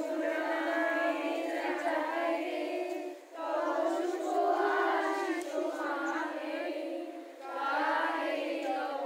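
A group of children and women singing together in unison, in long phrases broken by short pauses for breath about three seconds in and again about seven seconds in.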